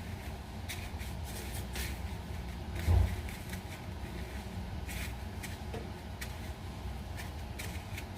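Dry panko breadcrumbs rustling and crackling in short bursts as a croquette patty is pressed and turned in them by hand, with a single dull thump about three seconds in.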